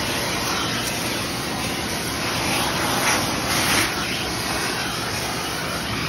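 Dryer-vent-cleaning vacuum running steadily, air rushing through its corrugated hose, swelling briefly a little past the middle.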